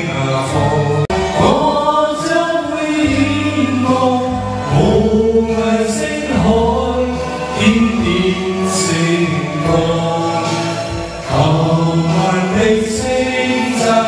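Karaoke: a Chinese song playing from the TV, with a sung melody over backing music.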